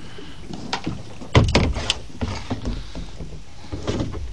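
Hollow plastic knocks and bumps from a kayak hull and its paddle shifting as the boat is handled, with a cluster of louder thumps about a second and a half in.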